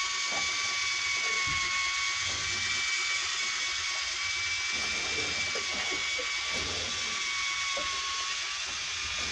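Electric fishing reel winding in line, a steady whine of motor and gears with occasional light knocks.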